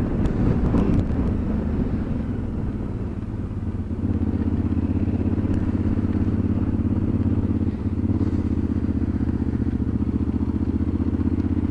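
KTM 990's V-twin engine running at low, steady revs. It is heard pulsing through the helmet camera and dips in level for a couple of seconds before settling to a steady note from about four seconds in.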